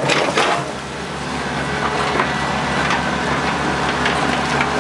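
Hitachi EX120 excavator's diesel engine running steadily while the loaded mud bucket is swung, with a burst of crackling noise in the first half second.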